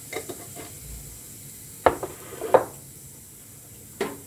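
Cumin seeds sizzling in hot oil in a nonstick frying pan, tempering. Over the sizzle come a few small clicks, then sharp knocks of kitchenware on the pan: two about two seconds in and one near the end.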